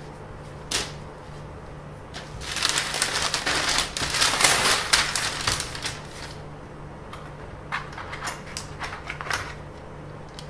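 Crinkling, rustling handling noise for about four seconds, then a handful of scattered clicks and rustles, over a steady low electrical hum.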